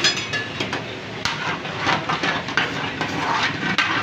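Metal utensils and dishes clattering in a busy restaurant kitchen: a run of quick knocks and clinks, with a brief metallic ring at the start.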